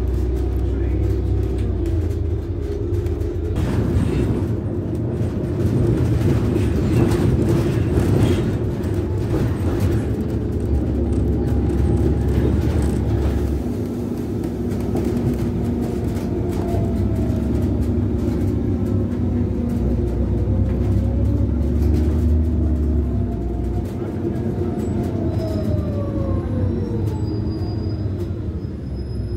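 Cabin sound of a Karsan Bredamenarinibus Avancity+L CNG city bus under way: a steady low engine and road rumble, with a faint whine that rises and falls in pitch as the bus speeds up and slows.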